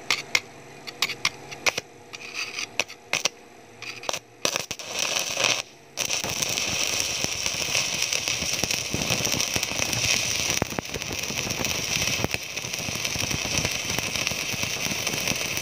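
Stick-welding arc from an inverter welding machine set to about 96 amps. It starts as sharp clicks and short crackles while the electrode is tapped and scratched to strike the arc. About six seconds in the arc catches and burns with a steady crackle.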